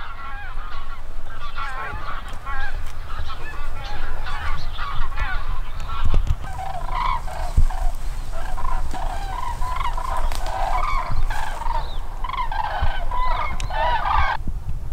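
A large flock of migrating wild birds calling in flight, many overlapping calls at once, stopping abruptly near the end.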